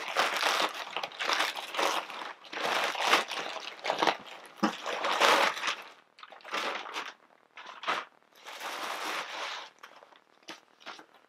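Plastic shipping bag crinkling and rustling as a jersey is pulled out and unwrapped by hand. Dense handling for about the first half, then sparser short rustles that fade out near the end.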